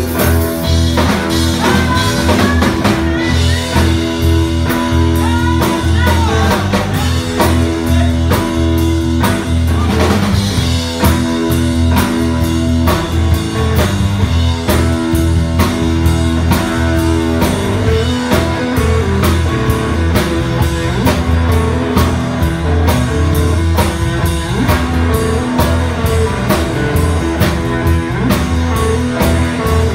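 Live blues-rock band playing an instrumental passage: electric guitars over bass guitar and drum kit, with a lead guitar line of bent, gliding notes in the first several seconds.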